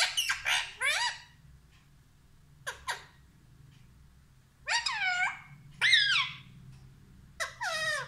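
Rose-ringed (Indian ringneck) parakeet calling: a rapid run of high, sliding calls in the first second, then short squawking calls about three, five, six and seven and a half seconds in, with quiet gaps between.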